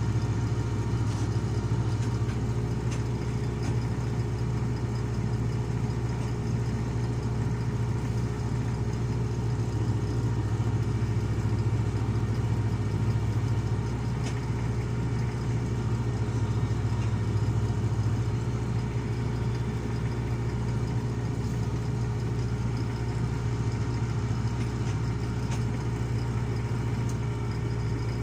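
Diesel engine of heavy machinery running steadily with a deep, even hum and no change in speed.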